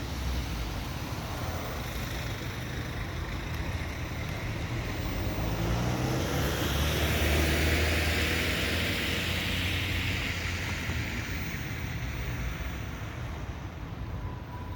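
A motor vehicle passing by: engine hum and road noise that slowly swell to a peak about halfway through, then fade away.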